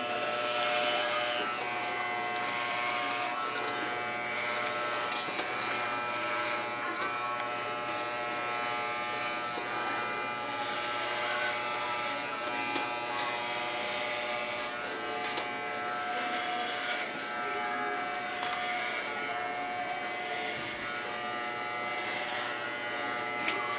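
Corded electric hair clippers running in a steady buzz while they cut short hair close to the scalp, with a hiss that comes and goes over the hum as the blades pass through the hair.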